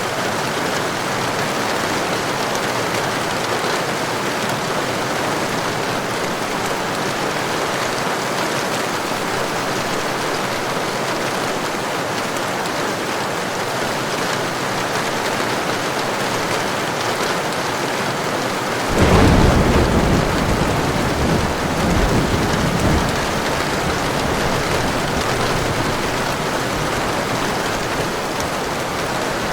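Steady heavy rain, with a thunderclap breaking in sharply about two-thirds of the way through and rumbling on, swelling again a few seconds later before dying down under the rain.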